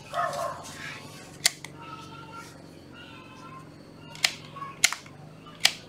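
Handling of a Ryobi 12 V cordless flashlight and its battery pack: a rustle near the start, then several sharp plastic clicks, three of them close together near the end as the light is worked.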